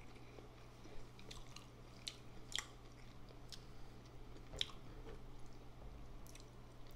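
Close-miked chewing with the mouth closed: slow chewing with scattered sharp wet mouth clicks, over a faint steady low electrical hum.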